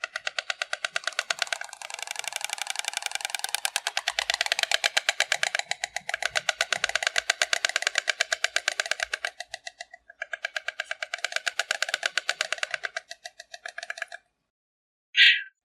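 A stork clattering its bill: a rapid, even run of wooden-sounding clacks at about ten a second. The run breaks off briefly twice and stops well before the end, followed by one short sharp burst.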